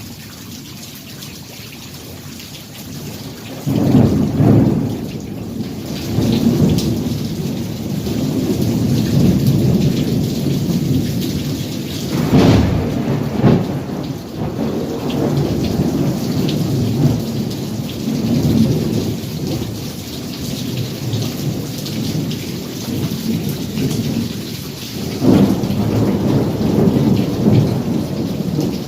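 Heavy rain with thunder: a sudden loud clap a few seconds in, another near the middle and one near the end, with deep rolling rumble between them over the steady hiss of the rain.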